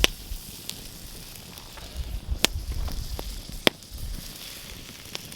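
Wood campfire crackling, with a steady hiss and about five sharp pops.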